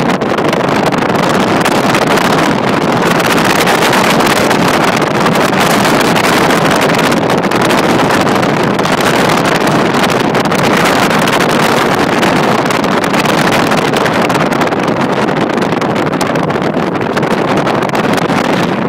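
Steady, loud rush of wind buffeting the microphone at a moving vehicle's side window, mixed with the vehicle's road noise at speed.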